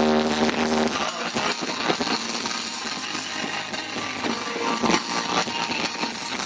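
Fireworks crackling: a dense, continuous mass of tiny pops and fizzing from crackle-effect shells, with a brief steady held tone in the first second.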